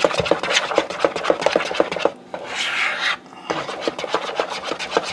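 A utensil scraping round a bowl, stirring thick peanut butter and melted frosting into fudge mixture in quick strokes, about five a second, pausing briefly twice.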